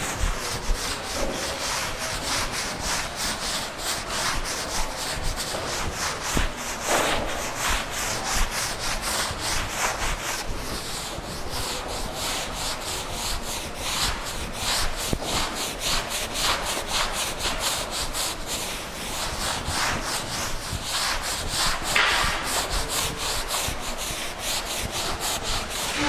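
Blackboard duster rubbing chalk writing off a blackboard in quick, continuous back-and-forth strokes.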